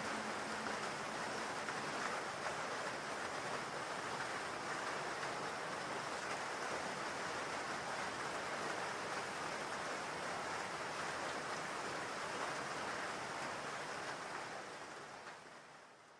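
Steady rain falling, an even hiss of rain noise that fades out near the end.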